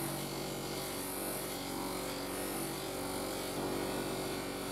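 Bench grinder running steadily with a steady motor hum, as the steel jaws of a pair of pliers are held against its spinning abrasive wheel, which adds a continuous hiss of the metal being smoothed.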